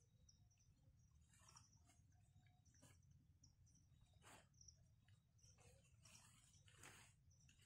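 Near silence: faint forest ambience with faint high chirps and a few soft rustles.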